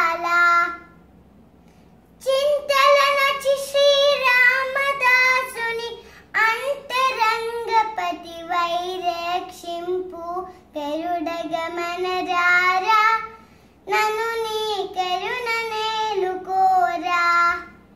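A young girl singing a Carnatic devotional song unaccompanied, in long melodic phrases with a couple of short breath pauses.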